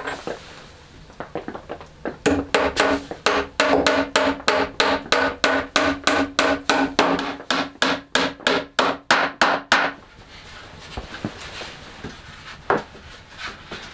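Hammer driving a nail into a scrap-wood shelf frame: a quick, even run of blows, about three a second for some seven seconds, each with a short ringing note. A single knock comes near the end.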